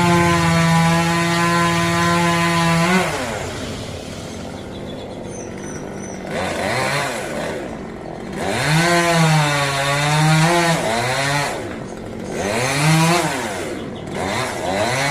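Two-stroke chainsaw cutting rambutan wood. It runs at a steady high throttle, drops to idle about three seconds in, then revs back up in four bursts. The pitch dips in the middle of each burst.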